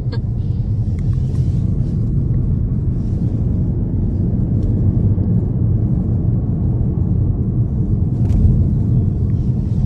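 Steady low rumble with a few faint clicks scattered through it.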